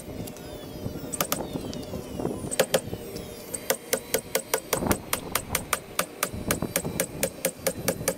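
DeWalt cordless nailer driving nails into plywood: a few single shots in the first seconds, then a quick even run of shots, about four a second, through the second half.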